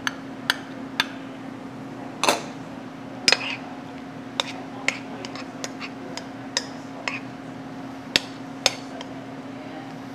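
A metal spoon clinking and scraping against a glass mixing bowl as tuna and mayonnaise are stirred together: a dozen or so irregular sharp taps, two of them drawn out into short scrapes about two and three seconds in. A steady low hum runs underneath.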